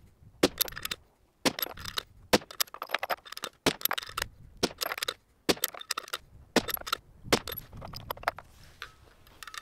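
A quick run of sharp metallic clicks and clinks: 6.5 Creedmoor brass cartridges rattling as they are pulled from a plastic ammo box, and the bolt-action rifle being worked and loaded.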